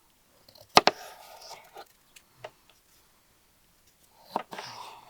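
A sharp knock about a second in, followed by softer handling and scraping noises, a lone click, and another cluster of knocks near the end.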